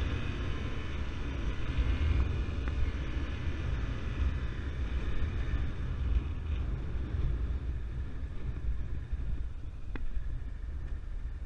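Honda CRF250L single-cylinder dual-sport motorcycle running as the bike slows down, under a heavy, steady low rumble of wind on the microphone.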